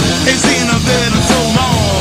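Rock music with electric guitar bends and a steady drum beat; no vocals in this stretch.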